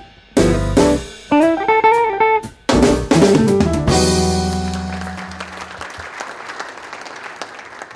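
Closing theme music with drum kit and guitar: a few short punchy phrases with brief breaks between them, then a final held chord that rings out and fades.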